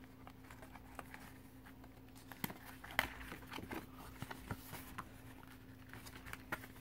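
Faint handling of paper and thin cardboard packaging, a folded paper sleeve of instruction booklets being pulled out and opened: scattered light taps and rustles, a few louder ones partway through, over a steady low hum.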